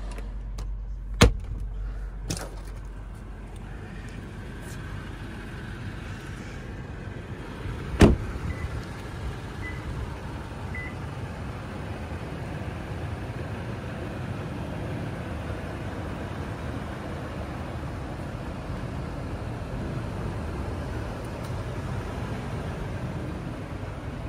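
A sharp click about a second in as the center-console cool box lid of a 2008 Toyota Land Cruiser is shut, then a loud thud near eight seconds as the truck's door closes. After that, a steady low rumble with a hiss: the Land Cruiser running in the rain.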